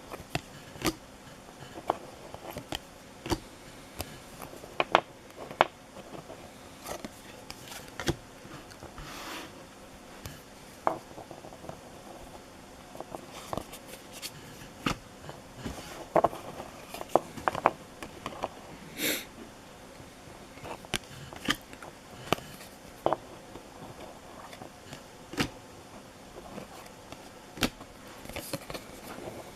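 Baseball card packs and cards being handled: scattered sharp clicks and crinkles of wrappers and card stock, with a brief rustle a little past halfway.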